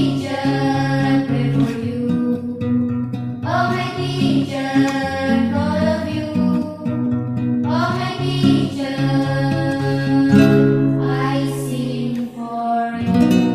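A vocal group singing a slow song to acoustic guitar accompaniment, in long phrases that each open with a rising note. The voices stop near the end, leaving the guitar.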